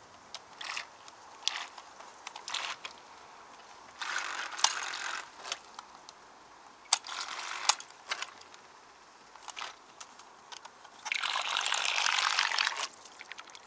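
A small solar-powered model boat's propeller churning and splashing the water in a rain barrel in a series of short bursts, with a few sharp clicks among them. The longest and loudest burst lasts about two seconds near the end.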